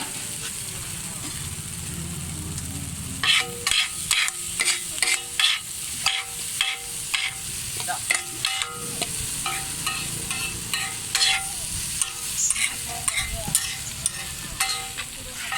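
Kothu parotta being minced on a hot iron tawa: steel spatulas clanging against the griddle over a steady sizzle of frying. The sharp, ringing metal strikes start about three seconds in and come irregularly, about two a second.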